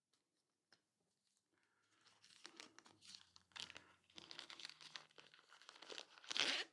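Plastic packaging crinkling as it is handled, starting a couple of seconds in in irregular bits and loudest just before the end.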